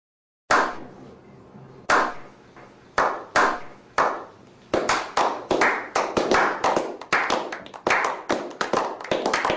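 A slow clap by a small group of men. After a brief silence, single hand claps come about a second apart, each with an echoing tail. From about five seconds in, more hands join and the clapping grows quick and dense.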